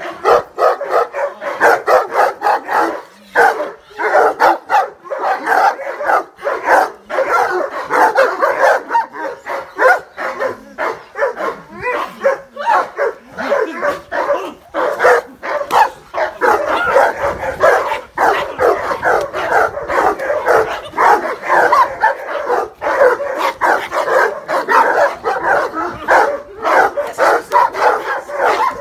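Dogs barking rapidly and without pause, several barks overlapping, as alarm barking at a masked stranger.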